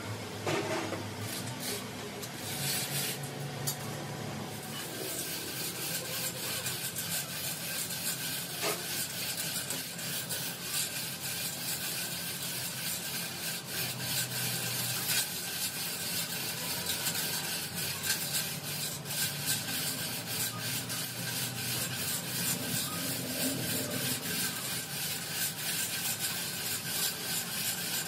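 Hand chain hoist being hauled, its chain rattling through the hoist in a fast, dense stream of clicks that thickens about five seconds in.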